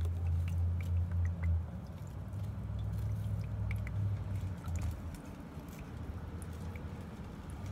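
Wooden stick stirring and pressing wet clay slurry through a mesh strainer over a bowl of water, with faint scrapes and small clicks, under a low rumble that weakens after about five seconds.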